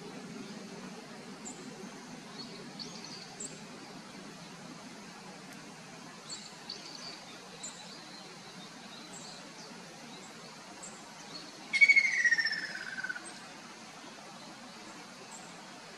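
Ruddy kingfisher calling once, about twelve seconds in: a single loud descending trill lasting about a second and a half. Faint high chirps from other birds come and go before it.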